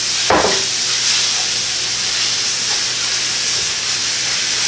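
Ground beef frying in a pot as pasta sauce goes in, making a steady hiss of sizzling and steam. A short thud comes about a third of a second in.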